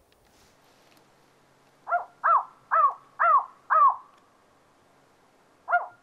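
Handheld electronic game caller playing a recorded northern spotted owl call through its speaker to draw a territorial owl's reply: a run of five short hoots, each rising and falling in pitch, about two seconds in, and another hoot starting near the end.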